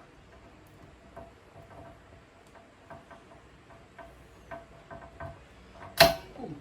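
Light, irregular clicks of small metal hardware being handled and fitted: spring washers and a nut going onto the chain tensioner bolt. Near the end comes one loud, sharp clack.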